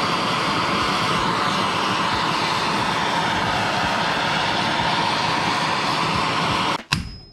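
Handheld gas torch burning with a steady, loud rushing roar as its flame heats the aluminum shifter housing to free a seized roll pin. The roar cuts off suddenly near the end.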